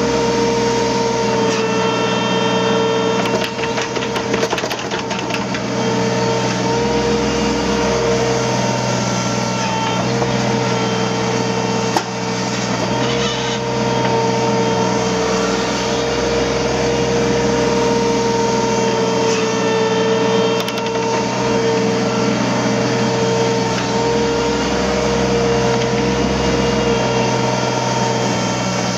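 Hydraulic excavator's diesel engine running steadily with a constant hydraulic whine. A patter of small knocks comes a few seconds in, and a single sharp knock near the middle.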